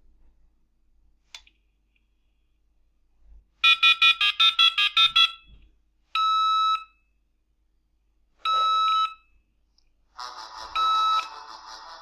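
A dial-up modem's speaker dialing a phone number with a quick run of about ten touch-tone (DTMF) beeps. Then come two separate steady electronic beeps a couple of seconds apart, and near the end a longer buzzy electronic tone with a short beep in it.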